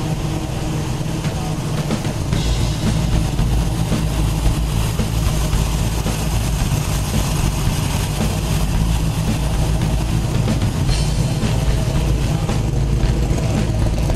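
1962 Corvette's 327 V8, fed by a single four-barrel carburettor, running steadily just after its first start in about a year following a frame-off restoration. It gets a little louder about two seconds in.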